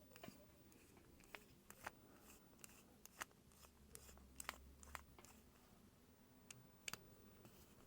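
Near silence with faint, scattered small clicks and taps, about a dozen, from handling a wristwatch and its case back with small tools.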